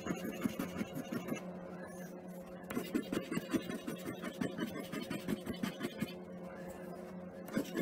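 A coin scraping the coating off a scratch-off lottery ticket in quick, repeated strokes. It pauses briefly twice, about two seconds in and again near the end.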